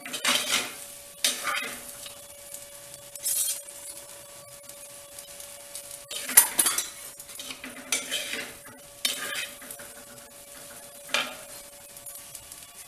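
Metal spoon stirring and scraping cooked rice and brinjal masala in a clay pot, in irregular strokes every second or two, with the spoon clinking against the pot.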